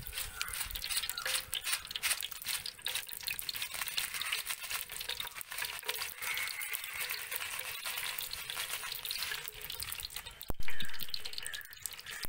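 Mustard seeds spluttering in hot oil in a stainless steel pan: a dense run of small pops and crackles over a frying hiss, with one louder crack about ten and a half seconds in.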